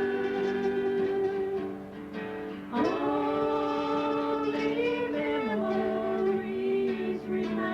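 A man singing long held notes, with what may be light guitar, played back from an old home-recorded cassette tape. About two seconds in the sound dips briefly, then a new note slides up and is held.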